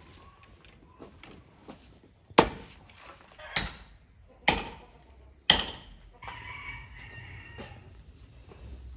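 Four sharp chopping strikes about a second apart, typical of an axe or hatchet cutting branches, followed by a rooster crowing for about a second and a half.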